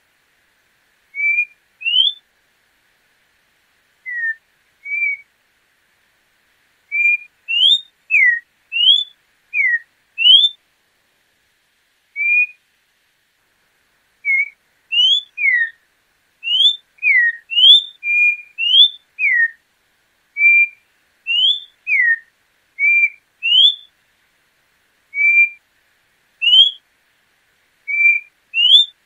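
Orange-backed troupial (João-pinto) singing: short, clear whistled notes, each a quick upward or downward slur or a brief level note, given in loose phrases with pauses of a second or two between them.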